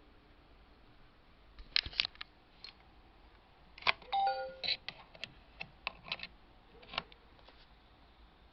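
Sharp plastic and metal clicks of a USB flash drive being handled and pushed into a laptop's USB port, then a short electronic chime about four seconds in, the laptop's device-connected sound. Scattered handling clicks follow.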